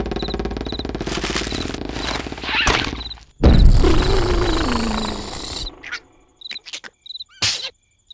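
Cartoon sound effects. Crickets chirp under loud, noisy rasping sounds, then a sudden loud burst with a falling tone comes about three and a half seconds in. A few short, sharp sounds follow near the end.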